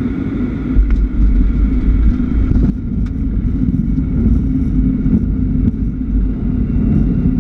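Cockpit noise of an Embraer ERJ-145 regional jet in the landing flare just above the runway: a steady rumble of airflow and its turbofan engines, with a few brief knocks about one and three seconds in.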